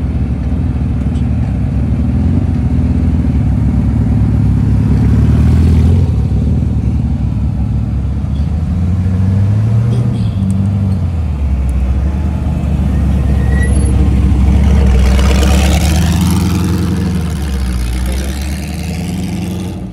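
Lola race car's engine running as the car drives slowly past at close range. The revs rise about ten seconds in, and a louder burst of revs around fifteen seconds in is the loudest part, easing off as it pulls away.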